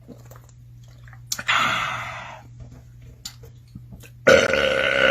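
A man belching: a loud, drawn-out burp with a clear pitched tone, lasting over a second near the end. Earlier, about a second and a half in, a shorter breathy rush of air.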